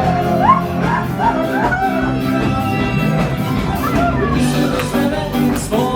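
Live band music: a melody line slides and bends over steady held chords and bass, with drums.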